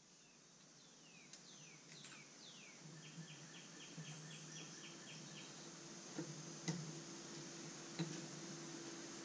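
Birds singing: a few falling whistles, then a quick run of about a dozen repeated notes, over a steady high hiss. A few sharp clicks in the second half, the loudest sounds here, come from hands working at the outboard's lower cowling.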